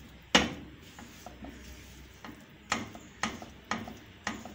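Silicone spatula knocking and scraping against a nonstick frying pan while khoya is stirred and pressed: one sharp knock near the start, then four more about half a second apart in the second half, with small ticks between.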